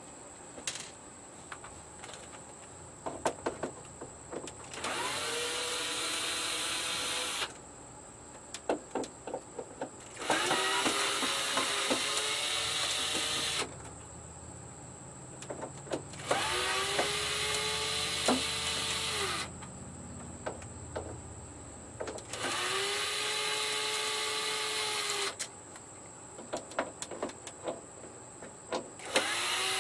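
Cordless drill or electric screwdriver backing screws out of a TV's back cover. It runs in about five bursts of roughly three seconds each, every few seconds. Each burst rises briefly and then holds a steady whine. Small clicks and taps from handling the screws and the cover come between the bursts.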